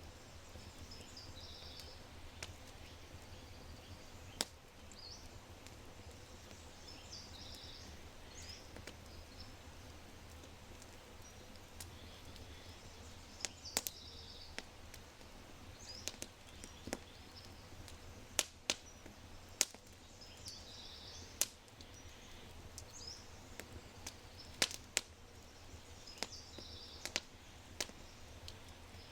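Oak fire crackling with sharp, irregular pops that come more often in the second half. Birds chirp in short high calls now and then.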